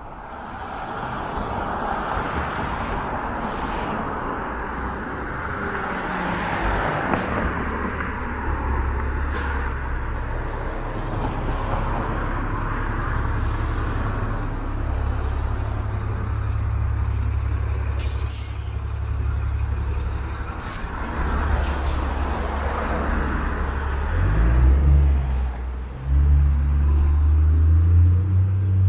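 Strong wind buffeting the microphone in a low, gusting rumble, over the steady noise of street traffic. The rumble grows heavier from about six seconds in and gusts hardest near the end.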